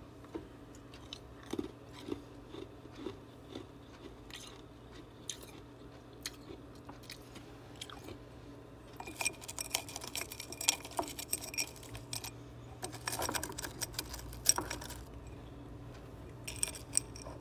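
Freezer frost being chewed and crunched between the teeth: scattered crisp crunches at first, then denser bouts of crunching about halfway through and again a few seconds later.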